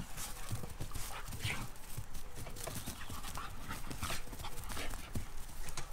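Two dogs play-fighting on grass, with dog noises over a quick, irregular run of short scuffling sounds.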